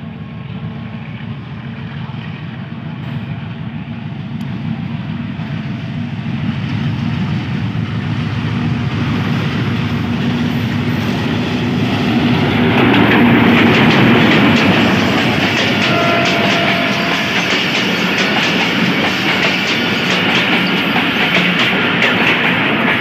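Diesel-electric locomotive hauling a passenger express, approaching with its engine rumbling and growing steadily louder, loudest as it passes close about 13 seconds in. The coaches then run past with the wheels clattering over the rail joints.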